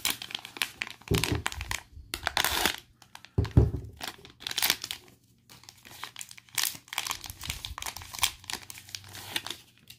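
Foil wrapper of an Illusions football card pack crinkling and tearing as it is ripped open and the cards are pulled out, an irregular string of rustles with a low thump about three and a half seconds in.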